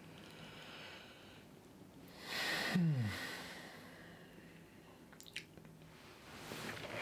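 A man yawning: a long breathy rush of air that ends, about three seconds in, in a short groan falling in pitch.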